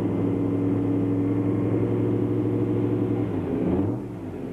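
An engine running at a steady speed. About three seconds in its pitch wavers and falls, and it grows quieter about four seconds in.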